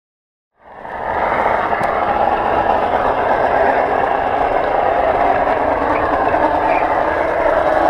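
Garden-scale model train running with the camera on board: a steady whir and rattle of its motor, gears and wheels rolling on the track. It fades in from silence about half a second in.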